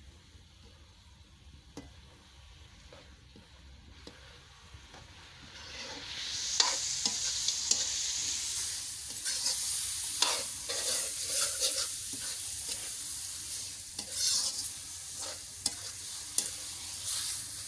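Marinated chicken pieces frying in hot oil and spice paste in a metal wok (kadai), stirred and turned with a metal spoon. The stirring is faint at first; about six seconds in the sizzle rises sharply, with repeated scrapes and clicks of the spoon against the pan.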